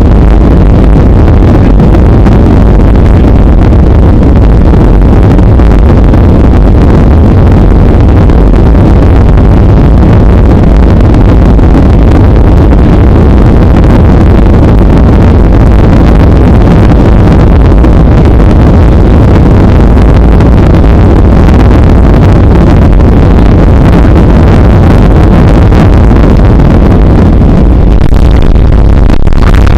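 Loud, steady cabin noise inside a Boeing 737 on final approach: a rumble of engines and rushing air, heaviest in the low end and unchanging.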